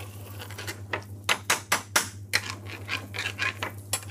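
A metal spoon stirring chicken in curry sauce in a steel frying pan, clicking and scraping against the pan in a quick, uneven run of knocks that is loudest in the middle, over a steady low hum.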